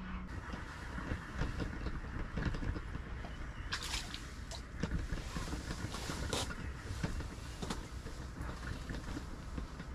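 A cordless drill driving an ice auger cuts off right at the start. After it, a steady low rumble of outdoor noise runs with scattered knocks and crunches, the sharpest a little under four seconds in and again around five and six and a half seconds in.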